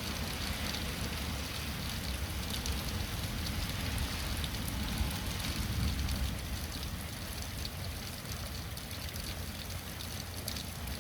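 Heavy thunderstorm rain coming down steadily, an even hiss of rain with a low rumble underneath.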